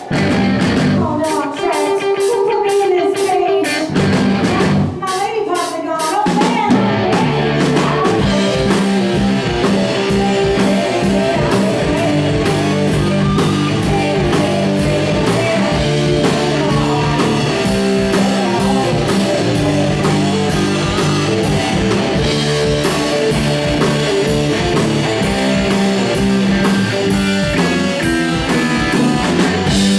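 Live rock band: a woman sings over a sparse accompaniment. About six seconds in, the full band comes in with drum kit and electric guitar and plays a steady beat.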